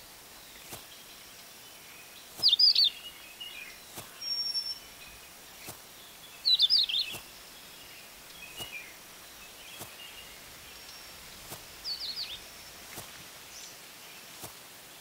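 Songbirds chirping in short, quick bursts of high notes every few seconds over a faint steady hiss of outdoor air.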